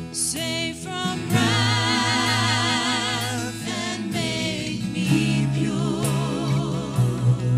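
Worship song performed live by a church band: several singers singing together in held notes with vibrato, over guitar and bass accompaniment.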